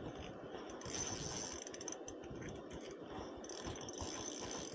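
Spinning reel ratcheting while a hooked trout is played, in two stretches: about a second in, and again from about three and a half seconds in.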